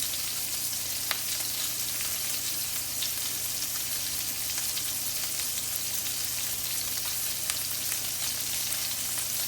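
Meatballs frying in a pan: a steady sizzle with a few small pops, over a low steady hum.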